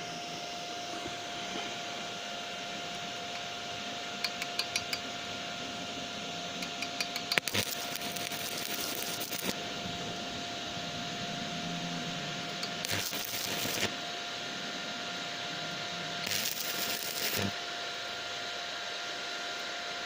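Electric arc welding with a WERT MMA 220 inverter: the arc hisses and crackles steadily, with louder sputtering spells about four, seven and thirteen seconds in.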